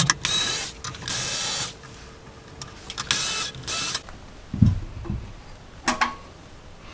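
Cordless electric screwdriver whirring in about five short bursts, backing the screws out of a metal shield plate. After them come a low knock and a click as the loosened plate is lifted off the circuit board.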